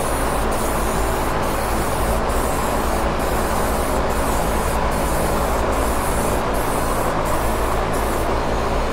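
Aerosol spray-paint can hissing steadily as it lays candy green paint onto a guitar body, with a steady low hum underneath.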